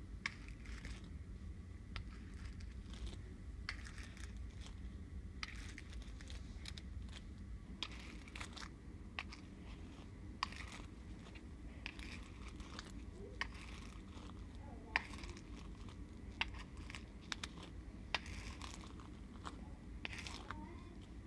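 A small hairbrush drawn through a doll's hair, with hand handling: faint, irregular rustles and short clicks over a low steady hum.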